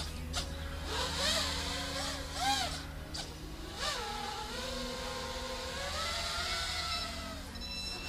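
FPV quadcopter with Happymodel SE2306 2700KV brushless motors on a 3S battery, flying overhead: a motor and propeller whine that rises and falls quickly with the throttle for the first few seconds, then glides up and down more smoothly.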